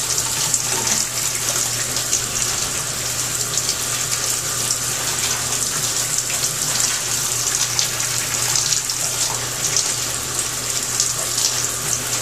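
Shower running: a steady hiss of water spraying from the showerhead, with irregular small splashes and a low steady hum underneath.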